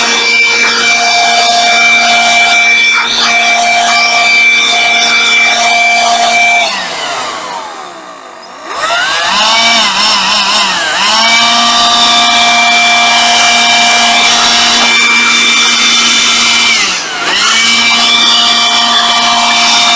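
Hitachi RB18DSL 18 V cordless blower running with a steady whine. About seven seconds in the trigger is let go and the motor spins down almost to a stop, then it is started again, its pitch rising and dipping as the variable-speed trigger is worked before it settles back at full speed; near the end it dips briefly once more and picks back up.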